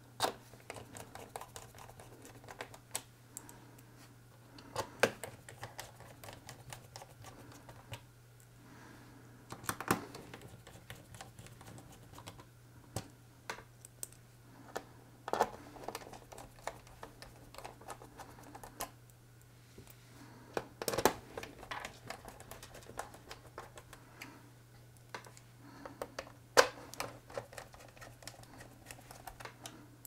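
Small Phillips screwdriver driving screws back into the bottom cover of a Gigabyte G5 KE laptop: irregular light clicks and scrapes of metal on the cover, with a sharper click every few seconds.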